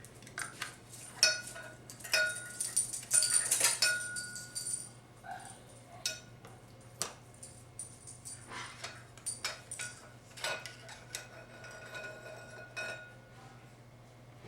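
Metal parts of a 4L60E transmission input drum clinking and tapping against each other as it is taken apart by hand, some knocks leaving a short metallic ring.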